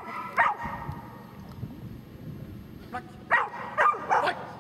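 A dog barking: one bark about half a second in, then three sharp barks in quick succession near the end.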